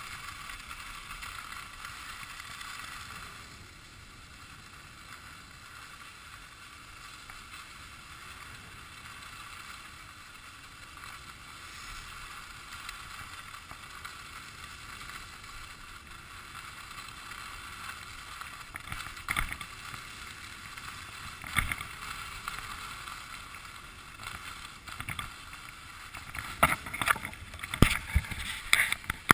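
Steady hiss of sliding down packed, groomed snow on a ski run. It is broken by a few sharp knocks and bumps, two in the middle and a quick cluster near the end.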